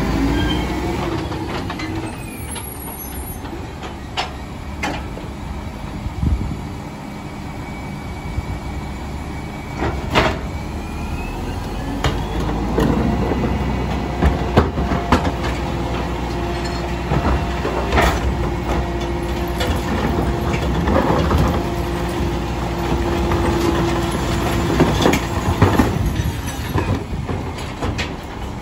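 Loadmaster rear-loader garbage truck's diesel engine running as it pulls up and idles, with scattered knocks and clunks as a wheeled trash cart is rolled to the back and hooked onto the tipper. A steady whine holds for several seconds in the middle.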